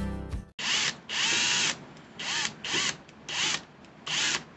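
Electric drill run in six short trigger bursts, each a whine that rises and falls, spinning a brass cleaning rod and polishing mop inside a 12-gauge pump shotgun's chamber to polish out a sticky chamber.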